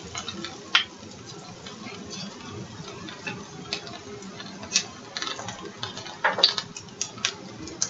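A kitchen utensil clicking and scraping against a frying pan as garbanzo-flour flatbread batter is spread out, with a few louder clicks, the strongest about six seconds in.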